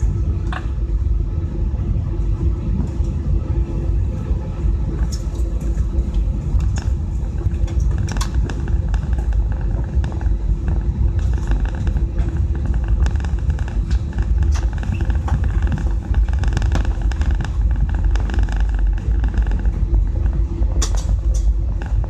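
Jet airliner cabin noise: a steady low rumble under a constant hum, with scattered light clicks and rattles.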